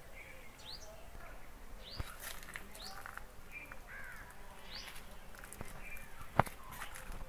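Birds chirping and calling in garden trees, many short rising and falling notes, with a faint click about two seconds in and a sharp, louder click near the end.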